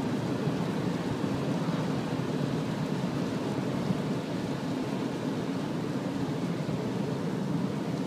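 Steady rumble and hiss of a car driving on a wet road, heard from inside the cabin.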